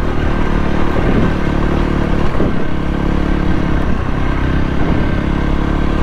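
Voge 300 Rally's single-cylinder engine running at a steady pace with small changes in pitch as the bike is ridden along a dirt track, over a steady rush of wind noise.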